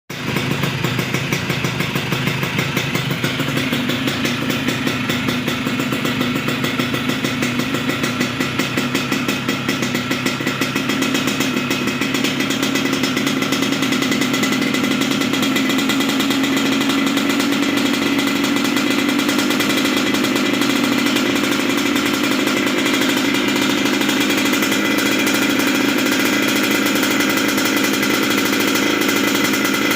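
Yamaha RX King's 135 cc two-stroke single-cylinder engine running steadily while its carburettor is being adjusted. The engine speed creeps up about ten seconds in, then holds steady.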